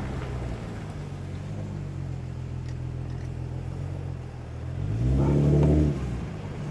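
Vehicle engine idling steadily, then briefly revved about five seconds in before settling back to idle.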